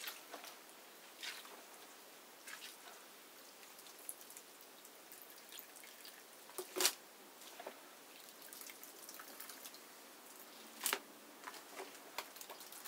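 Bare hands squeezing and crushing whole dark grapes, stems and all, in a plastic basin: soft wet squishes with juice dripping back into the mash. Two louder wet splats stand out, one about halfway through and one later.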